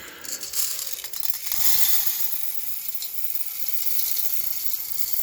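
Roasted coffee beans rattling as they are winnowed in a stream of air to blow off the husks. Fine clicking at first, then a steady rushing hiss from about two seconds in.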